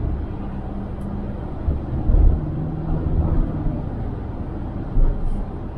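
Car driving at road speed, heard from inside the cabin: a steady engine hum over tyre and road rumble, with a couple of louder low bumps about two and five seconds in.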